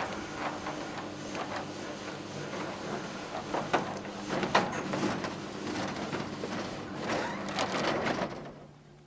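SeceuroGlide electric roller garage door running, its motor humming steadily under irregular rattling and knocking from the slats as the curtain rolls; the travel is jerky rather than smooth. The sound fades away near the end.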